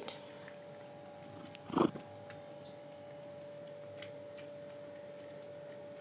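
A cat's single short meow about two seconds in, over a faint steady hum.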